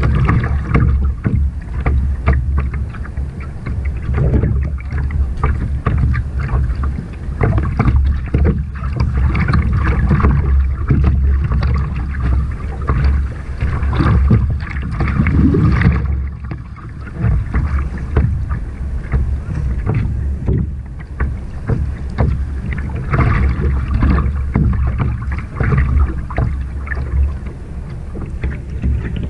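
Double-bladed kayak paddle dipping and splashing in choppy sea water from a sit-on-top surf kayak, with water slapping around the hull, under a steady low rumble of wind on the microphone.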